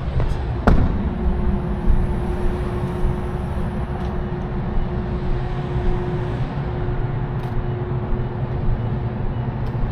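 Semi truck's diesel engine idling steadily. A sharp click a little under a second in, then a faint steady hum.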